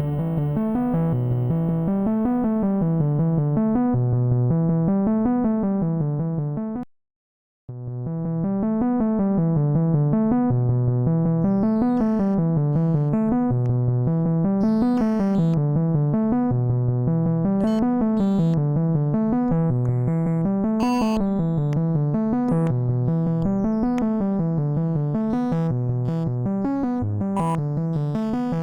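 Synthesizer sequence with a repeating rising-and-falling bass pattern, heavily distorted through the Glitchmachines Subvert distortion plugin. It cuts out completely for under a second about a quarter of the way in, and in the second half sharp crackling clicks are scattered over it.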